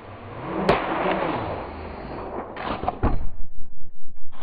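A sharp crack, then a rushing noise and a ripping crash as a paper poster is torn through. From about three seconds in comes a fast rhythmic thumping, about three pulses a second.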